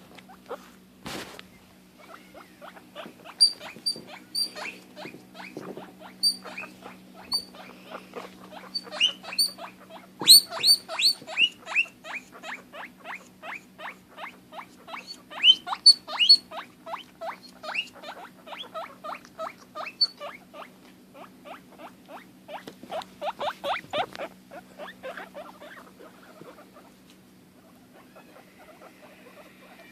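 Guinea pig calling in a long run of short squeaks, several a second, with louder high whistles mixed in, thinning out near the end. This is a separation call: she cries out when she can't see her cagemate sister.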